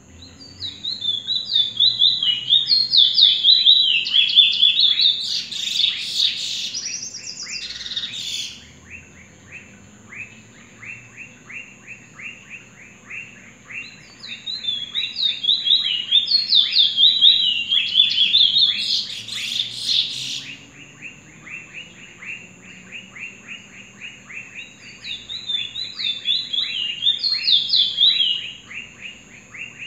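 Caged Trinidad bullfinch (chestnut-bellied seed finch) singing three bursts of fast, high warbled notes, each a few seconds long. Between the bursts runs a quick, even series of short ticks.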